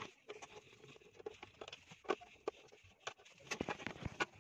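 Irregular light clicks, taps and scrapes of a screwdriver and hands working screws into a heater's plastic stand, thickest near the end.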